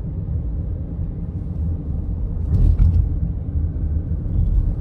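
A steady low rumble with no voices, swelling louder about two and a half seconds in.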